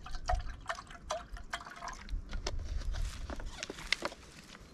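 Water glugging out of a plastic bottle into a small metal camping kettle, in uneven gulps, then a few light knocks as the bottle is set aside.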